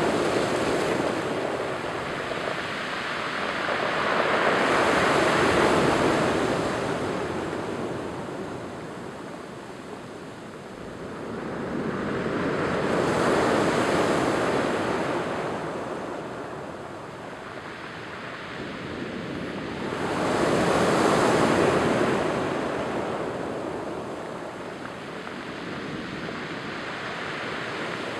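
Surf breaking on a cobble and pebble beach and washing back over the stones, swelling and fading in slow surges about every eight seconds, three times.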